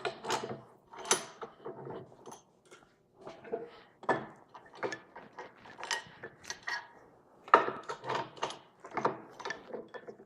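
Irregular metallic clinks and clatter as sockets and a U-joint on an axle shaft are set up and clamped in a bench vise, ready to press out the U-joint caps.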